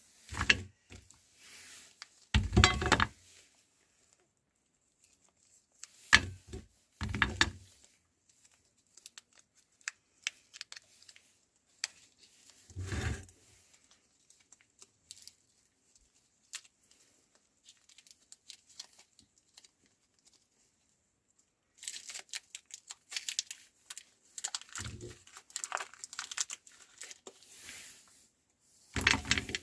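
Plastic candy wrappers crinkling and tearing as mini chocolate candies are unwrapped by hand, with a dense stretch of crackling near the end. A handful of short, heavier thumps break in between.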